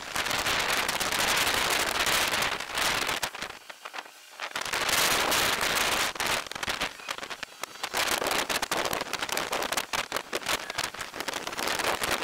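Crackling, hissing noise of stormy weather on the microphone, swelling and dropping in gusts, with a brief lull about four seconds in and another about halfway through.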